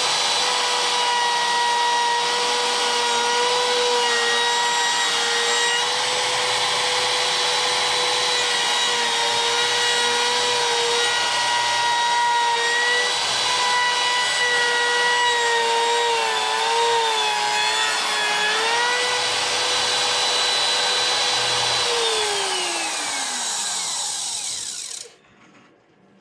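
Electric wood router running at full speed, cutting a kill-switch cavity into a guitar body. Its steady high whine wavers and dips in pitch under load about two-thirds of the way through, then it is switched off and winds down, falling in pitch and fading out near the end.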